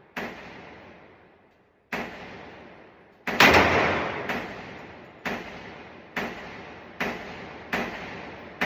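Handgun firing a slow string of about nine or ten shots, roughly one a second. Each shot is a sharp crack with a long echoing tail. The shot about three seconds in is the loudest and is followed closely by a second.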